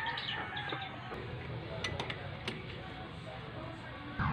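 A few light metallic clinks about two seconds in: a steel socket and extension turning down cylinder head bolts on a Mitsubishi 4G18 engine, over faint background music.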